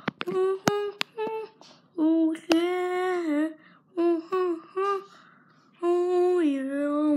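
A child's voice singing wordless notes: short sung notes, then long held notes that bend and fall in pitch, with a few sharp clicks in the first few seconds.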